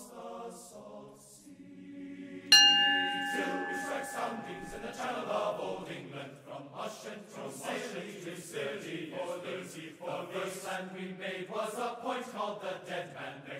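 A brass ship's bell struck once about two and a half seconds in, ringing out and fading over a couple of seconds. Choral chanting music runs underneath throughout.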